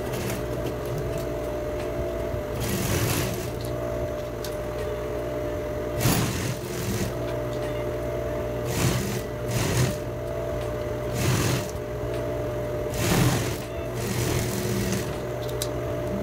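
Sewing machine stitching a seam along a folded fabric strip, in several short runs of about half a second to a second each over a steady hum.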